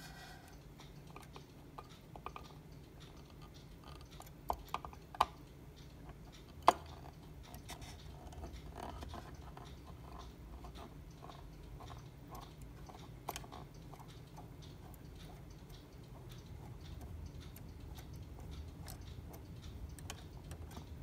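Scattered small clicks and taps of a screwdriver working at a tiny screw inside a wooden cuckoo clock case, metal on wood and metal. A few sharper knocks come between about four and seven seconds in, and one more about halfway through.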